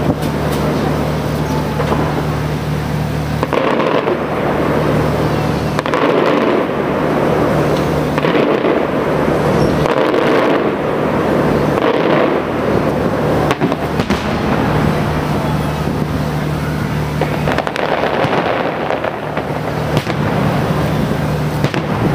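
Fireworks display going off continuously: frequent sharp bangs of aerial shells bursting one after another, over a steady dense crackle.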